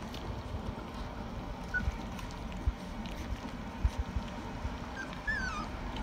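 Four-week-old Rottweiler puppies whimpering as they nurse: a short high squeak about two seconds in and a wavering, falling whine near the end, over low bumps and shuffling.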